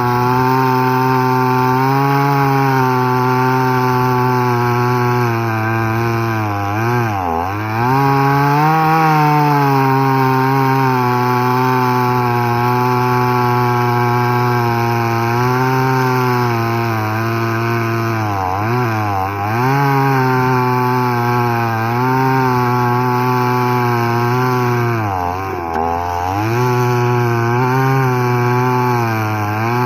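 Two-stroke chainsaw at full throttle cutting through tree wood. Its high engine note holds steady but sags briefly three times, about a quarter of the way in, about two-thirds in and near the end, as the chain bogs under load and the engine picks back up.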